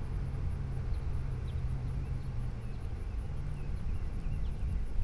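Outdoor ambience: a steady low rumble, with a few faint short chirps and a thin, high, pulsing insect-like tone.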